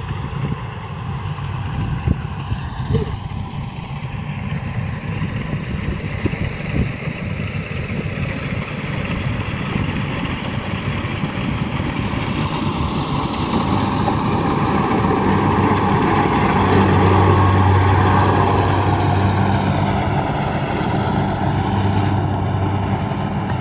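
An engine running steadily with a low hum, growing louder toward the middle and easing off a little near the end.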